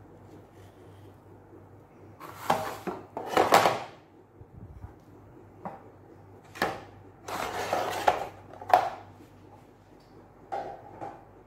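Handling noises from a mango being cut with a small knife and pulled apart over a plate: several short bursts of scraping and knocking, in two clusters with a shorter one near the end.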